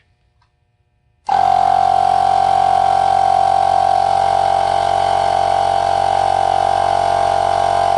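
Pittsburgh 12V direct-drive portable air compressor switching on about a second in and running steadily with a constant motor hum.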